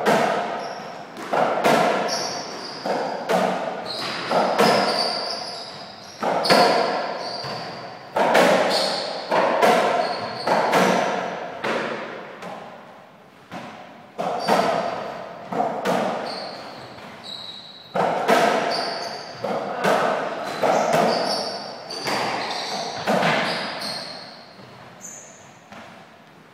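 Softraquet rally: the ball struck by racquets and hitting the court walls, sharp hits about every second that echo in an enclosed court, with short high squeaks between hits. The hits pause briefly about halfway through, then start again.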